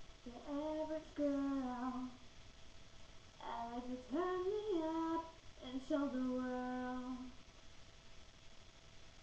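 A young woman singing unaccompanied: three short phrases with long held notes, then a pause of about two seconds near the end.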